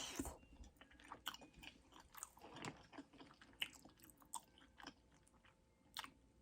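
Close-miked mouth chewing a mouthful of chicken Alfredo pasta: soft, wet, irregular smacks and clicks, a few a second, with a short rush of noise at the start and another about two and a half seconds in.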